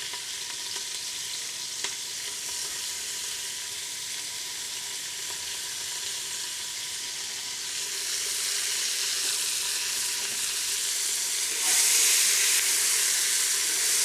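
Onions frying in a hot pan in the browned drippings left from searing short ribs: a steady high sizzle that grows louder partway through and jumps up sharply near the end.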